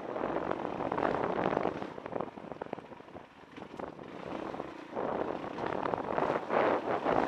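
Dirt bike ridden along a rocky desert singletrack: wind rushing over the bike-mounted camera's microphone, with the engine underneath and scattered clicks and knocks from stones under the tyres. The rush eases for a moment about halfway through, then builds again.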